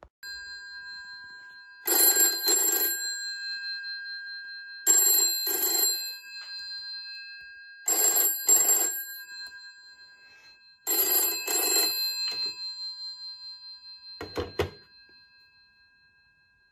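A restored GPO 741 rotary wall telephone's bell ringing in the British double-ring cadence. Four pairs of rings come about three seconds apart, the bell humming on between them, then a brief last ring before it dies away.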